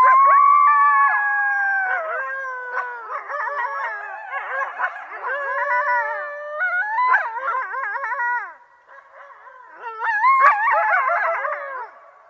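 A group of coyotes howling together. It opens with long howls, then breaks into many overlapping, wavering yips and howls. The chorus fades briefly about nine seconds in, then a second burst follows.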